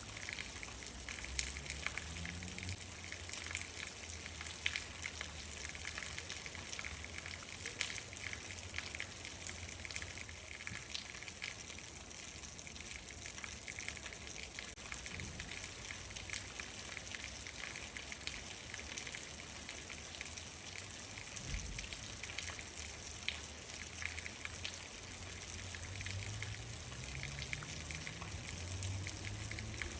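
Steady rain with many individual drops ticking, over a low rumble. A faint low rising tone comes in near the start and again toward the end.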